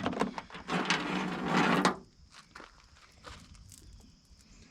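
A new chainsaw chain's packaging is opened and the chain handled: rustling and clicking for about two seconds, then only faint clicks.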